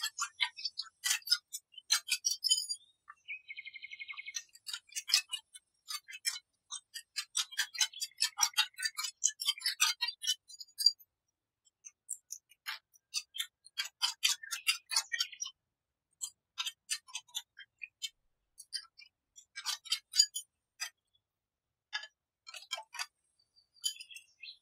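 Wire balloon whisk clicking and scraping against a glass mixing bowl as it beats a thin milky batter, in runs of quick irregular ticks with short pauses. A short high ringing tone sounds about three and a half seconds in.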